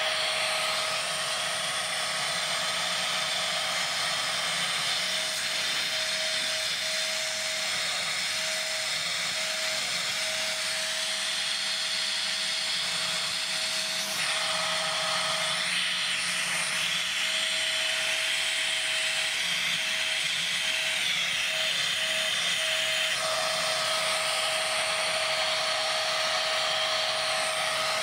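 Siemens Green Power Edition vacuum cleaner motor screaming with its suction fully blocked by a vacuum gauge: no air can get through, so the motor runs at redline rpm. The sound is a steady high whine over rushing hiss, and the tone shifts about halfway through and again near the end as the power dial is changed.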